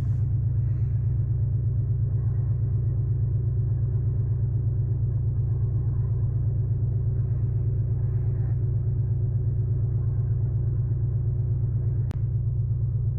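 Porsche 718 Cayman T's turbocharged flat-four engine idling: a steady low rumble with a faint steady hum above it. A single short click near the end.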